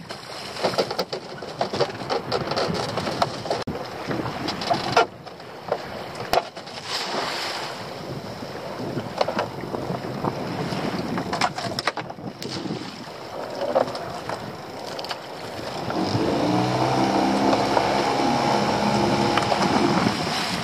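Wind and sea on the microphone with scattered knocks and clatter as a lobster pot and its rope are handled on a small open boat. About 16 seconds in, the boat's engine picks up and runs steadily as the boat gets under way.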